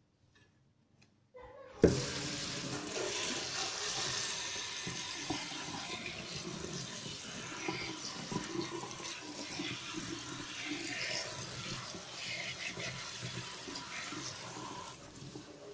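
Tap water running onto gotu kola leaves in a plastic colander, rinsing them. The flow starts abruptly about two seconds in and runs steadily, easing a little near the end.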